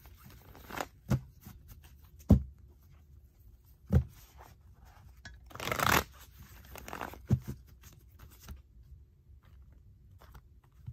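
A tarot deck handled on a newspaper-covered table: several sharp knocks of the cards against the table and one longer rustling shuffle about six seconds in.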